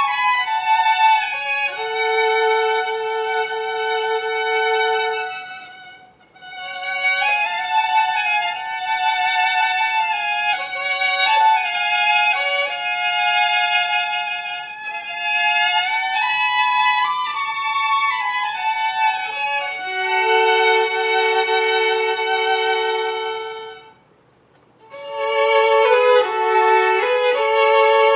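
Violin duet: two violin parts playing a Xinjiang folk melody in simple two-part harmony, with short breaks between phrases about six seconds in and a few seconds before the end.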